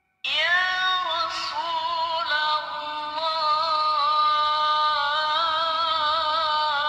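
Background music starting suddenly just after the start: a high voice singing long held notes that waver slightly.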